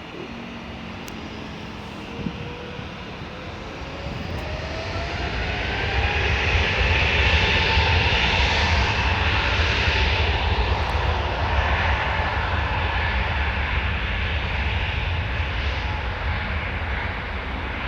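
Twin jet engines of an Airbus A320-family airliner spooling up to takeoff thrust: a whine rising in pitch over a deep rumble, growing louder over the first six seconds, then holding and easing slightly through the takeoff roll. A short knock about two seconds in.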